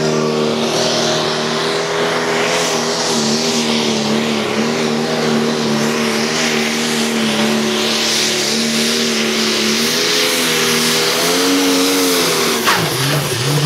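Diesel engine of a modified John Deere pulling tractor running flat out under heavy load while dragging the weight sled, a steady deep engine note. Near the end the note drops away as the throttle is cut and the pull ends.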